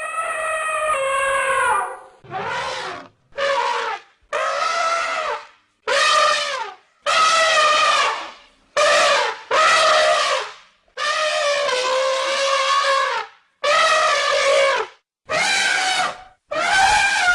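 Elephant trumpeting in a series of about a dozen brassy calls, each half a second to two seconds long, separated by short breaks.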